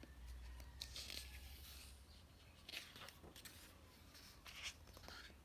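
Near silence: room tone with a low hum, broken by a few faint rustles and clicks.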